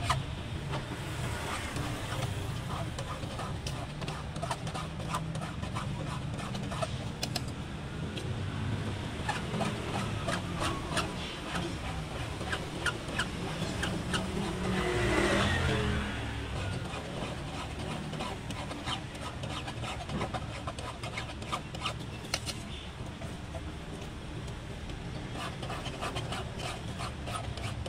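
Steady low traffic rumble, with a vehicle passing about halfway through and scattered small clicks and scrapes.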